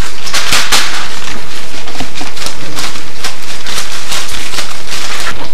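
Paper and cardboard packaging crinkling and crackling as it is handled and pulled apart: many short, sharp rustles at an uneven pace.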